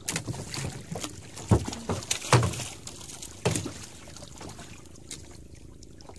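Water splashing and lapping at the side of a small wooden outrigger boat as a fisherman works over the gunwale, with three sharp knocks about one and a half, two and a half and three and a half seconds in; it quietens over the last two seconds.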